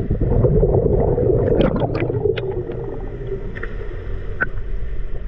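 Scuba diver's exhaled bubbles rumbling out of the regulator for the first couple of seconds, with a few sharp clicks, heard underwater through the camera housing.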